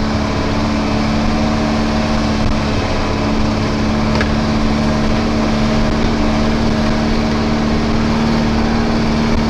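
Diesel engine of a DAF LF 12-ton truck running at steady revs as the truck rolls slowly along, heard from inside the cab: a constant drone over a low rumble.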